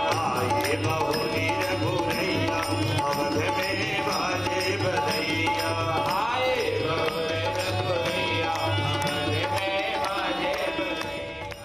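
Devotional bhajan-kirtan: a harmonium playing held chords under a sung devotional line, with a hand drum keeping an even beat. It fades out at the very end.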